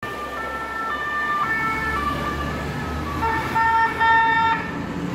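Two-tone emergency vehicle sirens alternating between two pitches about every half second, with a second siren at different pitches joining about three seconds in, over a low traffic rumble.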